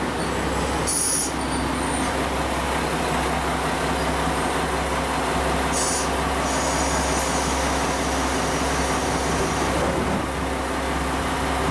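JR Kyushu KiHa 147 diesel railcar standing at a station platform, its engine idling with a steady low hum. Two short hisses of air break in, about a second in and again about six seconds in.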